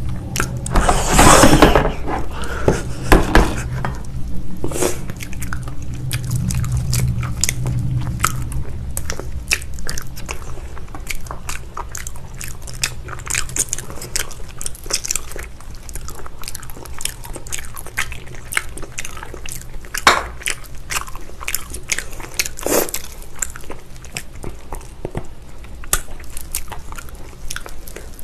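Close-miked biting and chewing on spicy braised beef feet, with dense wet smacks and small clicks throughout and a louder burst about a second in.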